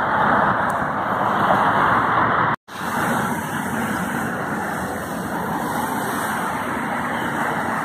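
Street traffic noise outdoors: a steady rushing hiss of road vehicles, cutting out for an instant about two and a half seconds in and then carrying on at the same level.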